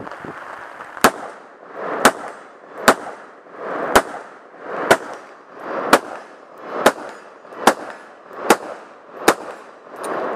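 An AR-style semi-automatic rifle firing ten single shots at a steady pace of roughly one a second, the pace quickening slightly near the end. Each shot is a sharp crack.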